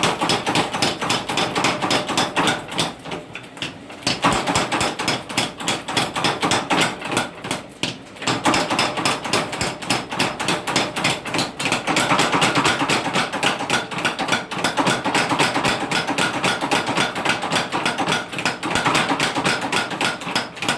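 Rapid, evenly spaced hammer blows on steel being forged into a blade, several strikes a second, with brief lulls about three and eight seconds in.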